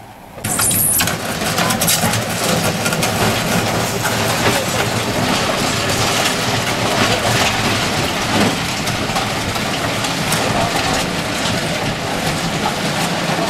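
GYSEV V43 electric locomotive running with a loud, steady drone from its blowers and traction equipment, starting suddenly about half a second in.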